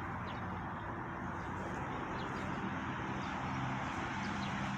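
Steady outdoor background noise: an even hiss over a faint low hum, with a few faint short chirps.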